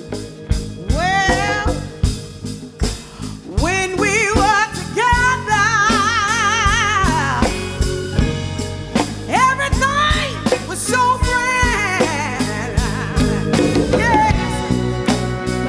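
Live soul band playing, with drums keeping a steady beat under a bass line, and long, wavering vocal notes that swoop up into held pitches with wide vibrato, sung without clear words.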